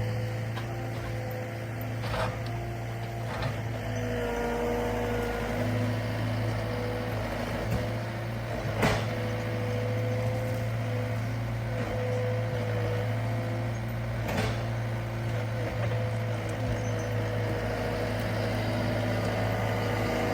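Diesel engine of a Cat 299D2 compact track loader running steadily, with a few sharp knocks spread through it.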